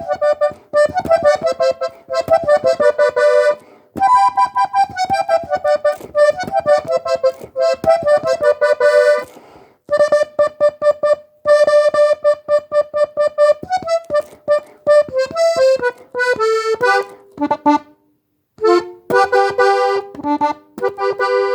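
Diatonic button accordion in G playing a cumbia melody, one note at a time, in short phrases with brief pauses between them.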